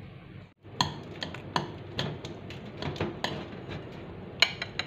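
A metal spoon clinking irregularly against a ceramic bowl while quick oats and banana are stirred and mashed, starting about a second in.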